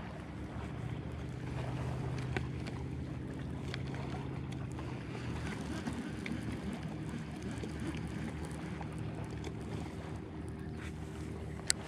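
Baitcasting reel being cranked on a steady retrieve, its gears giving a low, even whir, with wind on the microphone; a sharp click near the end.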